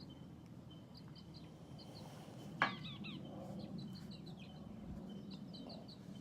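Small birds chirping in short, repeated high notes over a low steady background hum. One sharp click about two and a half seconds in is the loudest sound.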